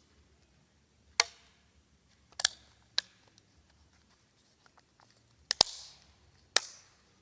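Several sharp, irregularly spaced clicks and snaps, some followed by a short rustle, from hands handling a new Nokia 150 phone and its packaging during unboxing.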